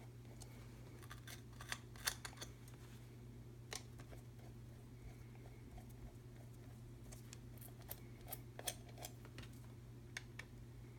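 Screwdriver backing out the small screws of a guitar pedal's metal bottom cover: scattered light metallic clicks and ticks over a steady low hum.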